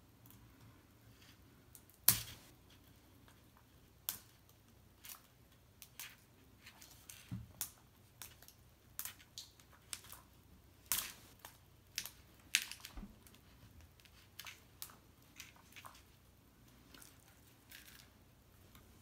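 Plastic toy packaging being handled and opened by hand: irregular crinkles, clicks and snaps, the sharpest about two seconds in.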